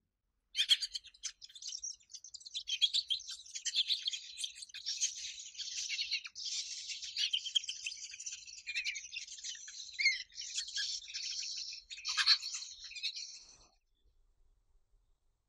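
Eurasian jay nestlings begging while a parent feeds them at the nest: a dense, unbroken chorus of high, rapid calls that stops shortly before the end.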